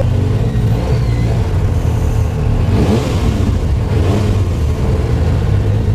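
Supercharged 2016 Yamaha YXZ1000R side-by-side's three-cylinder engine running at trail speed, heard from inside the cab; the revs rise and fall a little a few times around the middle.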